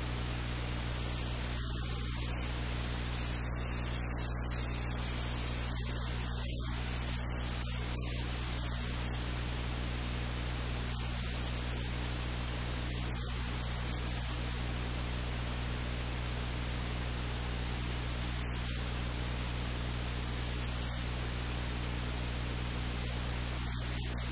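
Steady hiss of static with a low electrical hum underneath, unchanging throughout.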